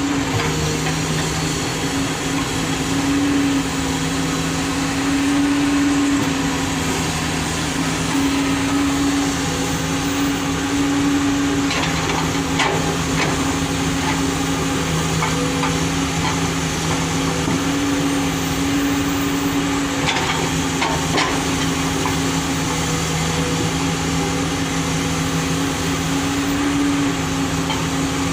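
Komatsu 210 excavator's diesel engine running steadily, with a few short clanks partway through.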